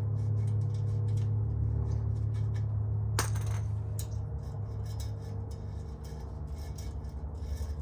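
Light metallic clinks of small steel parts and tools being handled, with one sharper clink about three seconds in, over a steady low hum.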